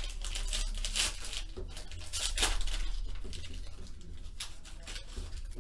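Foil wrapper of a Panini Elite Extra Edition baseball card pack crinkling and tearing as it is ripped open by hand, a run of irregular sharp crackles.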